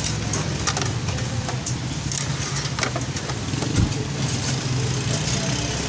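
A steady low motor hum, engine-like, with scattered short clicks.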